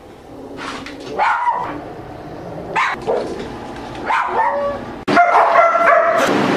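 American Bulldog barking in several short outbursts over its food bowl as a handler stands close: food-aggression guarding. About five seconds in, a louder, steady held sound takes over.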